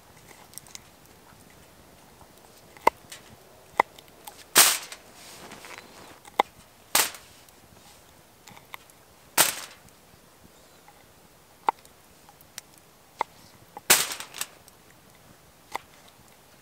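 A knife cutting fresh green beans on a split-wood board: a scattered series of sharp clicks and knocks a second or more apart. Four louder, crisper snaps come as the blade cuts through a bean.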